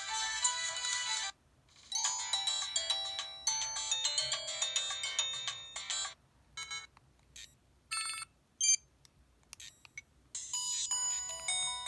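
LG-LB6300 mobile phone ringtones and alert sounds, electronic melodies. One tune stops about a second in, another plays for about four seconds, then come a handful of short separate chimes, and a new melody starts near the end.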